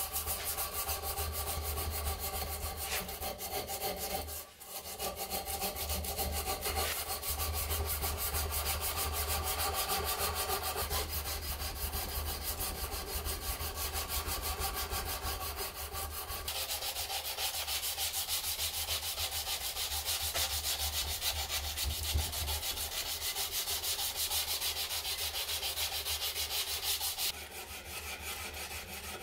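Hand file rasping in repeated strokes across a steel knife blade held in a vise. It breaks off briefly about four seconds in, turns brighter and hissier past the halfway mark, and falls quieter near the end.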